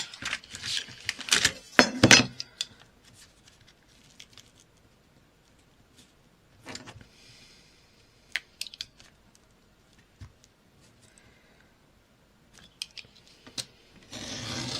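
Paper and craft tools being handled on a desk: paper rustling and sliding, with scattered sharp clicks and taps, busiest in the first couple of seconds and again near the end.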